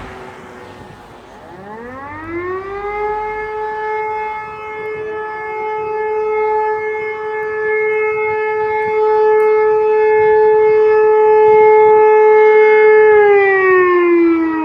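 Fire brigade siren sounding a test alarm, loud. It winds up in pitch about a second and a half in, holds one steady tone, and starts to wind down near the end.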